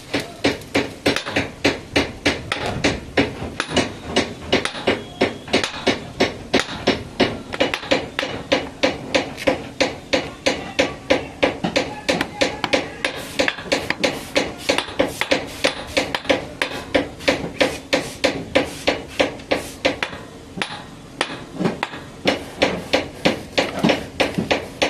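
Hammer striking metal on a boiler safety valve part that had jammed with scale: rapid, even blows, about three a second, each with a short metallic ring, with a brief pause a little past three quarters of the way through.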